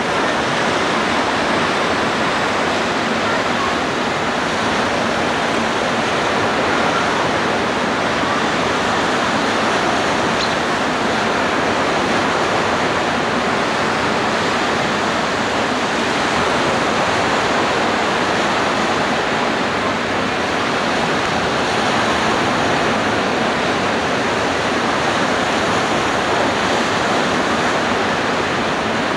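Steady rushing noise of beach surf and wind, even and unbroken throughout.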